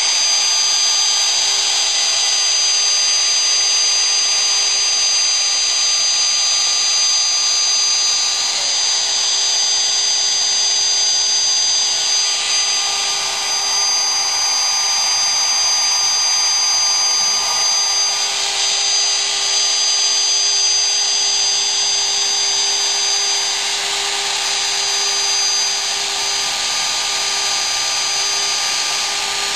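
The 1-3/4 HP router spindle of a home-built CNC machine running at speed, a steady high-pitched whine over a loud rushing noise. The noise swells and eases a few times as the machine works.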